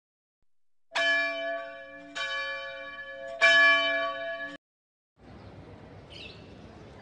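A metal bell (ghanta) struck three times, about a second apart, each strike left ringing, the third the loudest. The ringing cuts off abruptly, followed by faint background noise.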